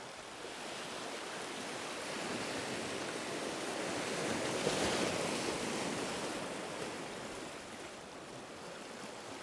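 Sea swell surging in around shoreline rocks, a rush of foaming water that builds to its loudest about halfway through and then ebbs away.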